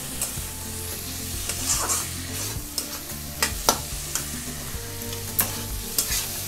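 Onion-tomato masala frying and sizzling in oil in a metal kadai while a flat metal spatula stirs it, scraping and clicking against the pan at irregular moments.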